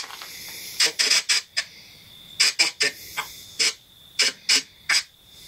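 Spirit box, a radio sweeping rapidly through stations, chopping out short irregular bursts of static and radio fragments about three times a second over a faint steady high whine.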